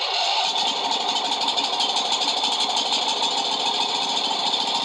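Huskee lawn tractor engine running steadily at an even pitch and level.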